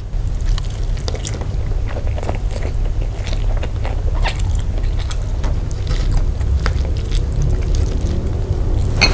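Close-miked chewing of a mouthful of nasi padang rice eaten by hand, with many short mouth clicks scattered throughout, over a steady low rumble.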